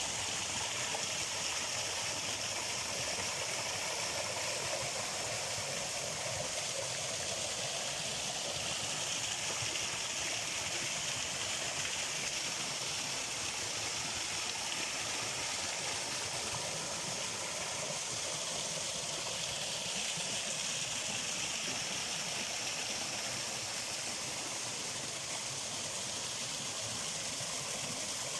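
Flowing water from a stream, a steady rushing hiss.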